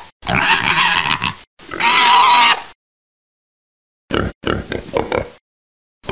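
Gamorrean-style creature voice effect: a voice processed into pig-like grunting, in two long grunting phrases, then, after a pause of about a second and a half, a short grunt and another phrase.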